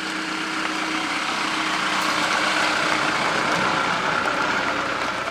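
Land Rover Defender 4x4 with a diesel engine driving slowly past on a grassy woodland track, engine running steadily with tyre noise; it grows louder as it draws near and is loudest as it passes close by about three seconds in.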